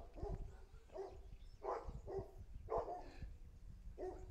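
A dog barking repeatedly: about six short barks, unevenly spaced, over a low rumble.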